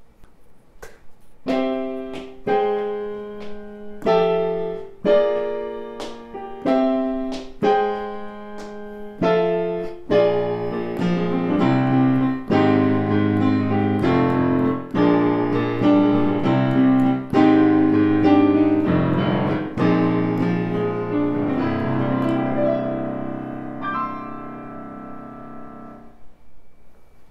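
Solo piano piece played on a Yamaha electronic keyboard. It opens with separate notes struck about once a second, turns to fuller chords over a bass line about ten seconds in, and ends on a held chord that fades away.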